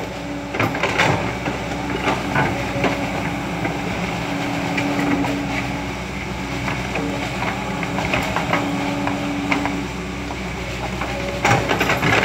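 Caterpillar 120B hydraulic excavator running steadily, its engine hum swelling twice, with scattered metallic clanks and knocks and a cluster of them near the end.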